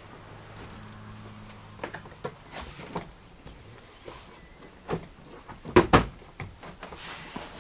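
Plastic trim clips on the lower front bumper piece snapping and knocking into place as the panel is pressed in by hand: a series of sharp clicks and knocks, the loudest pair about six seconds in.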